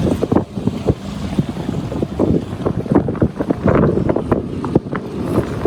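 Wind buffeting the microphone in irregular gusts, on the deck of a motor yacht as it docks.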